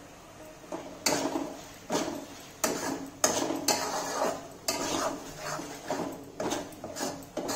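Metal spatula stirring a thick masala in an aluminium kadai, scraping and clinking against the pan about once or twice a second, starting about a second in.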